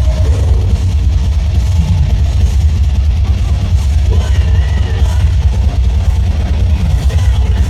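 Loud live rock music from a concert sound system, with heavy, overdriven bass throughout.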